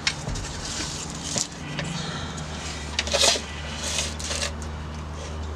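Scattered scrapes and knocks of a car jack and a wooden board being positioned under a pickup truck, over a steady low hum.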